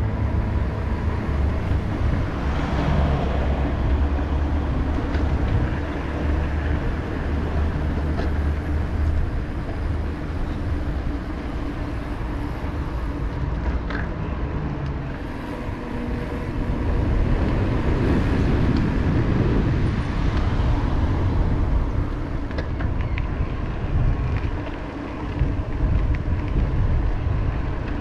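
Road traffic going by, a steady wash of car noise that swells and eases as vehicles pass.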